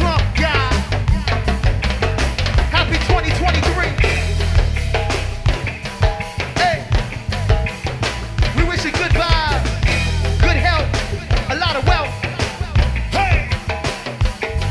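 Live go-go band music: a busy drum kit beat over heavy bass, with gliding melodic lines above it.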